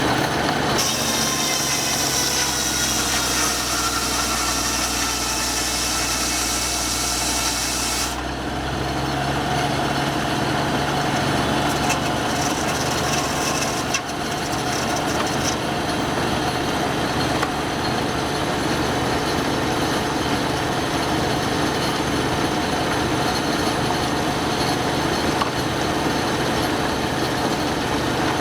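Sawmill running: the saw blade cuts through wood with a high whine for about seven seconds, then the cut ends abruptly. The mill's engine and the saw run on steadily.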